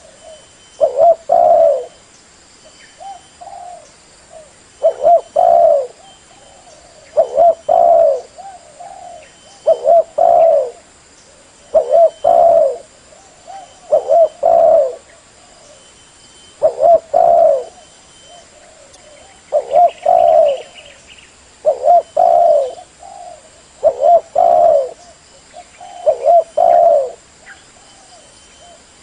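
Spotted dove cooing: a short phrase of two or three coos, repeated regularly about every two seconds. This is the dove's call used as a lure to draw wild birds.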